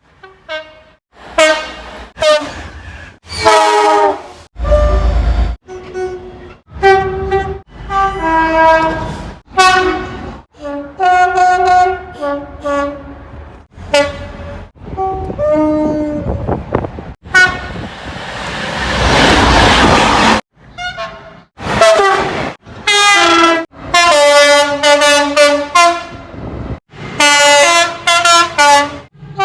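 Train horns from British diesel and electric trains, about twenty short blasts in quick succession, many of them two-tone, each cut off abruptly. About two-thirds of the way through, a passing train's rush of noise sounds for a couple of seconds.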